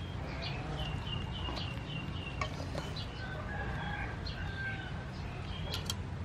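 A rooster crowing in the background with drawn-out calls, over a steady low rumble. A few sharp clicks come near the end.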